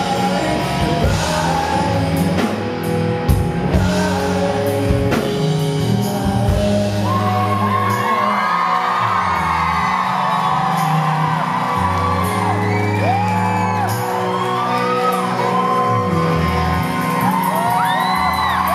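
A live rock band's closing chords ring out with several drum hits. From about seven seconds in, the audience screams and whoops over the sustained final chord.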